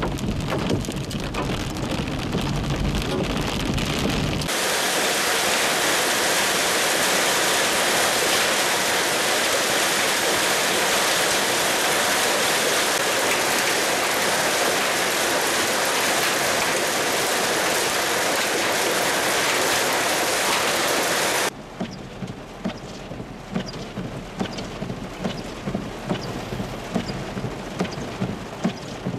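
Heavy hail and rain falling. At first a low rumble sits under the rain as a vehicle drives through the storm. After a few seconds it becomes a steady, even hiss of hail and rain on a grassy field, and about three-quarters of the way through it drops to a quieter patter with scattered sharp taps.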